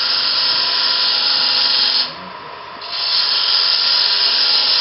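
Bowl gouge cutting the face of a spinning wooden bowl blank on a lathe: a loud steady hiss of shavings tearing off. The hiss breaks off for under a second about two seconds in, then resumes, over the lathe motor's steady hum.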